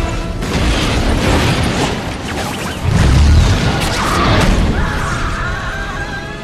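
Film action soundtrack: a fiery explosion with a heavy boom about three seconds in, over orchestral score, and a vampire's shrieking scream as she burns.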